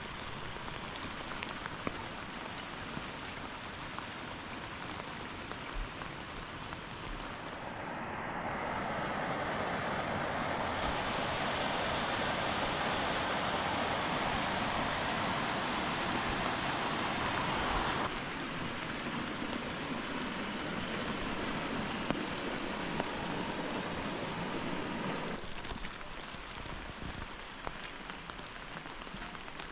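Steady rush of falling and running water, loudest and brightest through the middle, with sudden shifts in level and tone several times.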